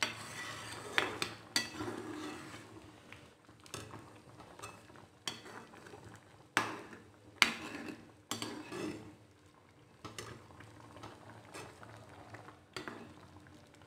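Slotted spatula stirring penne through thick white sauce in a pan, a soft wet scraping broken by a dozen or so sharp knocks of the utensil against the pan.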